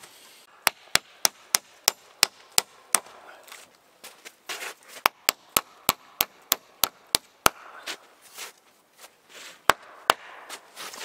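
Nails being hammered into a birch log window frame: a run of sharp, evenly paced strikes at about three a second, a short pause, a second run at the same pace, then a single strike near the end.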